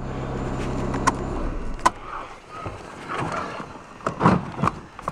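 Swapped-in VW 2.0 L common-rail TDI diesel idling steadily, then cutting off about a second and a half in. It is followed by a couple of sharp clicks and scattered knocks and rustling from handling inside the van.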